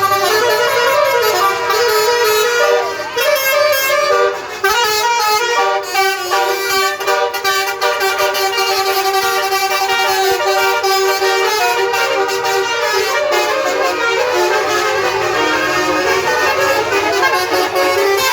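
Bus telolet horns: a bank of multi-trumpet air horns playing a melody, several notes sounding together and stepping up and down in pitch without a break.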